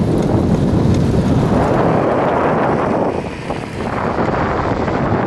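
Wind buffeting the microphone of a camera on a moving bicycle: a loud, steady rumbling rush that eases briefly a little over three seconds in.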